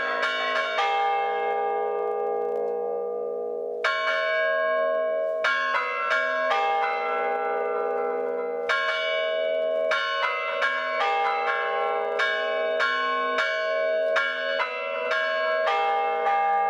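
Several church bells of different pitches struck in a rhythmic chiming pattern, rung by one man pulling ropes with both hands and both feet. About a second in the strikes stop for about three seconds while the bells ring on, then resume thick and fast.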